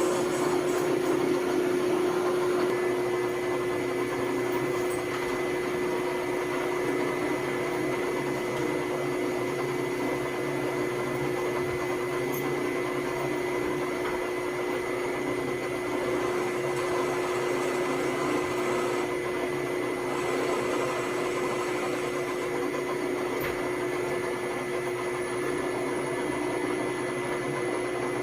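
A motor-driven machine running steadily, with a constant hum and a high whine over a noisy rush.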